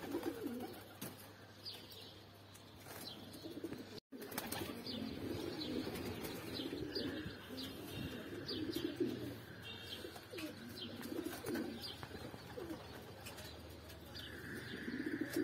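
Domestic pigeons cooing, repeated low warbling coos.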